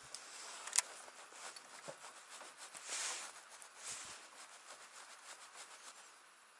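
Faint rustling and handling noise from a jacket and fishing rod, with a sharp click just under a second in and a louder rustle around three seconds in.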